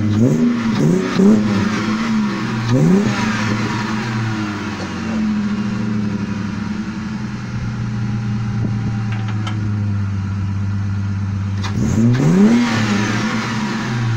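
Car engine blipped several times in the first three seconds, settling to a steady run, then revved once more about twelve seconds in. The revs build pressure in the cooling system to test a freshly repaired coolant leak on an old engine with about 380,000 km on it.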